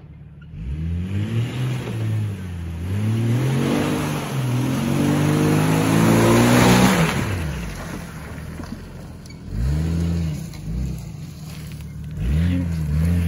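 Jeep Cherokee XJ engine revving up and down as it drives through mud, with several rises and falls in pitch. It is loudest about six to seven seconds in, with a rush of hiss, then gives two shorter revs near the end.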